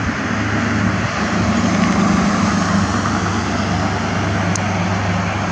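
A steady mechanical drone with a low hum, swelling a little about a second in and easing off again after about three seconds.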